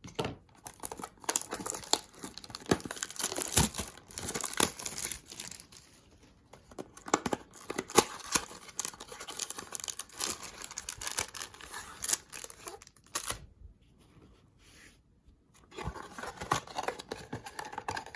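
Trading-card pack wrappers being torn open and crinkled: an irregular run of rips, rustles and sharp clicks, with a short lull near the end before the rustling starts again.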